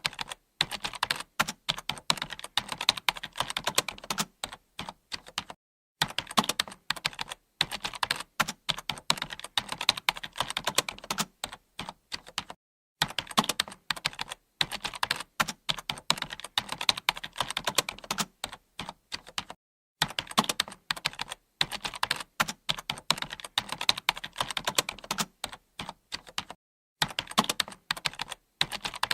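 Computer keyboard being typed on continuously, fast runs of key clicks with a few brief breaks.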